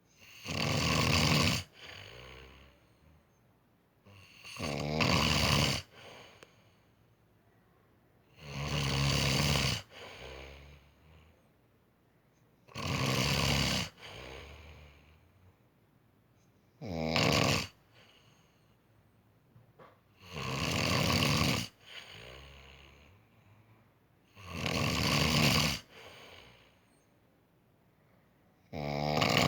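Loud, rhythmic snoring, one snore about every four seconds, each followed by a shorter, softer breath.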